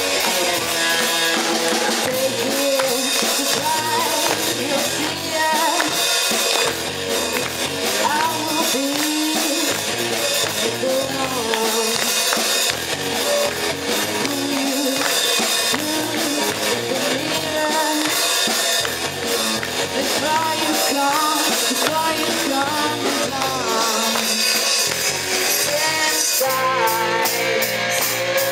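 Live rock band playing: drum kit, bass guitar and electric guitar, with a woman singing lead.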